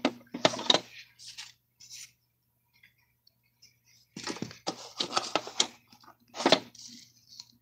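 Hard plastic clicking and knocking as the base of a Bissell CleanView Helix upright vacuum is handled and prodded around the brush roll. The knocks come in a flurry at the start and again from about four seconds in, over a faint low hum.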